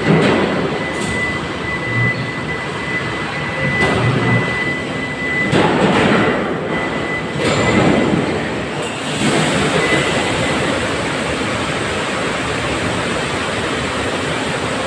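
Rumbling, knocking machinery noise with a thin steady whine for a few seconds. About nine seconds in it gives way to a steady rush of water pouring from a row of fill pipes into the block-ice cans, refilling them for the next freeze.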